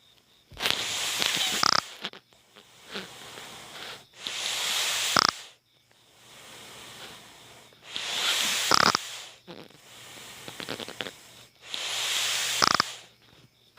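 A child snoring loudly, pig-like: four harsh snores about every four seconds, each lasting about a second, with quieter breaths between them.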